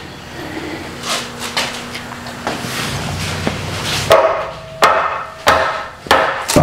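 Hammer blows on heavy metal parts of a dozer engine as it is knocked loose: a few duller knocks, then from about four seconds in a string of sharp, ringing strikes about two-thirds of a second apart.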